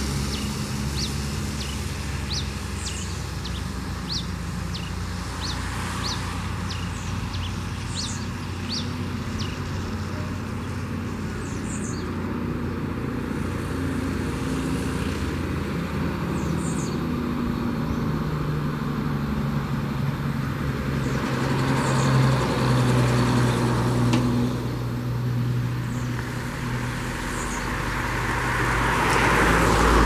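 Red pileated finch (tico-tico-rei) singing a run of short, high, thin notes about two a second, thinning out to a few scattered notes after the first ten seconds. Behind it is a steady low rumble of road traffic that swells twice later on.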